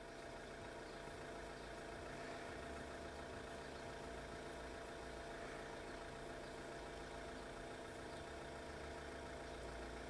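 A steady mechanical hum made of several constant tones, one of them stronger than the rest, with no change in pitch or level.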